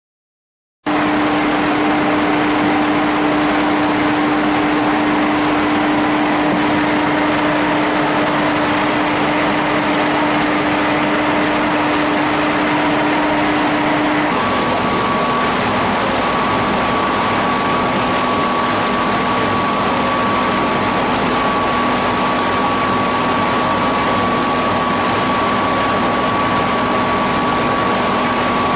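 Spindle rotary veneer lathe running steadily while peeling face veneer from a log: a loud, even mechanical noise with a steady hum. About halfway through it shifts abruptly: the hum drops lower and a higher whine comes in.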